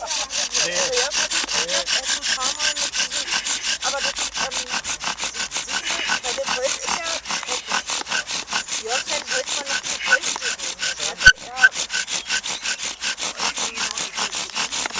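Bow drill being worked: the wooden spindle grinding in the fireboard notch with a rasping, squeaky rub in a fast, even rhythm of strokes as the bow is sawn back and forth, with smoke showing that the friction is heating the hearth toward an ember. A single sharp click a little past eleven seconds in.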